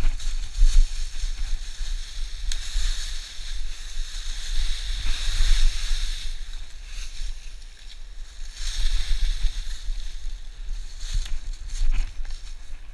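Footsteps crunching and swishing through a thick layer of dry fallen leaves, rising and falling in waves as the walker moves, over a steady low rumble.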